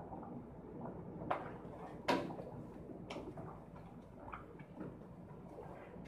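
A few light clicks and knocks of kitchen utensils, the loudest about two seconds in, over a low steady hum.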